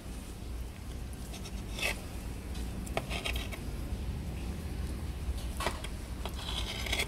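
Kitchen knife cutting pre-boiled octopus tentacles on a slate board: a few short scrapes and taps of the blade against the stone, over a low steady hum.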